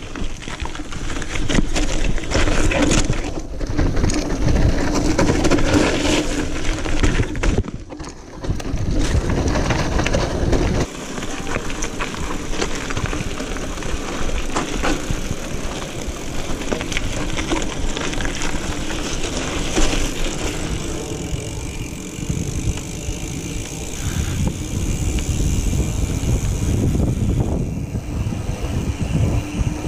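A single-speed Specialized Crave SL mountain bike being ridden over a rough dirt trail: tyres crunching over dirt and rocks and the bike rattling, with steady rumble across the microphone. About twenty seconds in, the clatter eases as the bike rolls onto smooth pavement.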